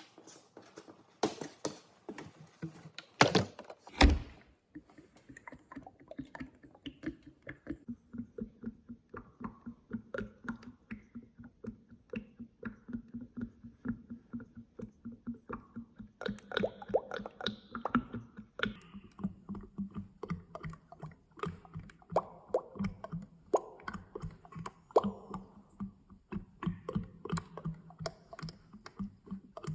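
Oil sloshing, heard as a continuous run of quick irregular plops and clicks over a low steady hum, with two loud knocks about three and four seconds in.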